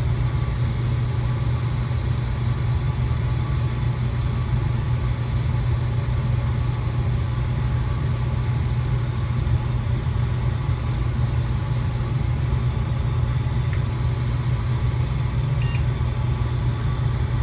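Desktop computer's cooling fans running with a steady, loud hum as the machine boots. A brief high beep sounds once near the end.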